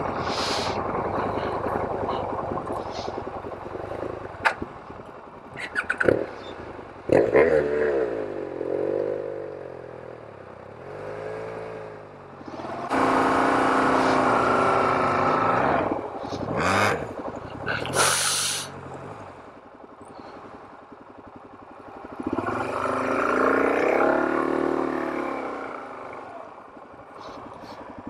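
Suzuki DR-Z400 single-cylinder engine running as the bike is ridden over a loose cinder track, revving up and falling back several times, with a few sharp knocks and clatter from the ride.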